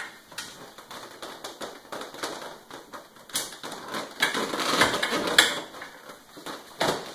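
Clicks and taps of metal parts, with the rustle of fabric, as a lawn sweeper's metal hopper frame and its fabric bag are handled during assembly. The busiest, loudest stretch comes around the middle, and there is a sharp click near the end.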